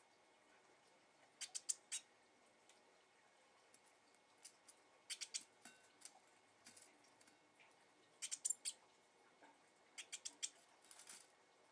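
Young blue tit pecking at seed in a metal bowl: small clusters of three or four quick, sharp clicks every few seconds.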